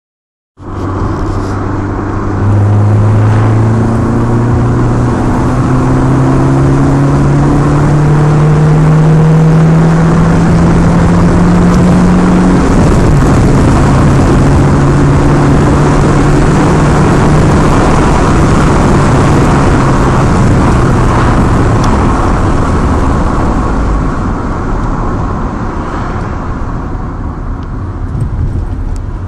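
A motor vehicle engine, loud, rising steadily in pitch for about ten seconds as it speeds up, then dropping sharply in pitch about thirteen seconds in. It runs at an even pitch after that and eases off over the last several seconds.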